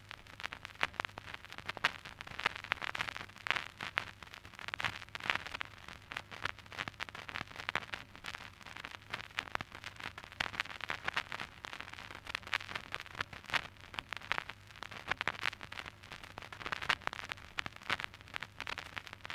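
Surface noise of an old vinyl record: dense, irregular crackles and pops over a steady hiss, with a faint low hum underneath.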